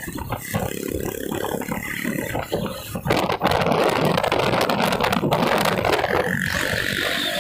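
Motorcycles riding at speed, heard from a following motorcycle: engine noise mixed with rushing wind on the microphone, louder from about three seconds in.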